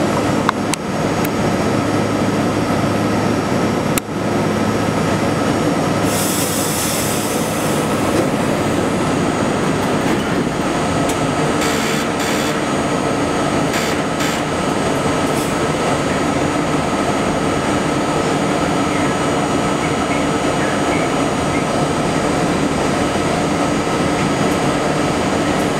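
Budd R32 subway car heard from its front window: a steady, loud drone of running equipment with a few held tones. A brief hiss of air comes about six seconds in, with a few light clicks some seconds later, as the train slowly begins to move.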